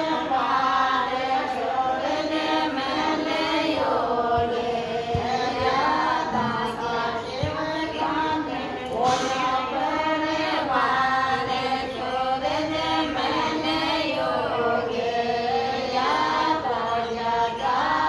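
A group of women singing together in a chant-like song that goes on without a break.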